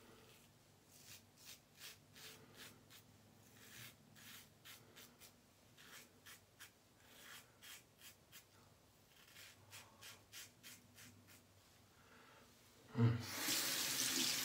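Blackland Sabre safety razor scraping through lathered stubble in short strokes, a few a second, each a faint crackling scrape. About thirteen seconds in, a faucet is turned on and water runs hard into the sink, much louder than the razor.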